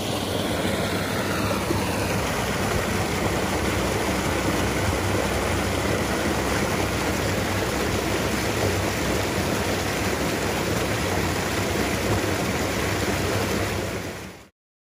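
Loud, steady rushing of a small waterfall, fading out near the end.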